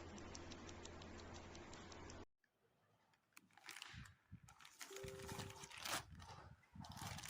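Steady hiss and low hum that cut off abruptly about two seconds in. After about a second of near silence come irregular clacks of keys being pressed on a mechanical keyboard fitted with Gateron KS-9 Brown tactile switches.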